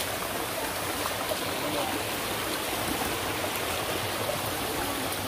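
Steady rush of flowing water from a forest stream.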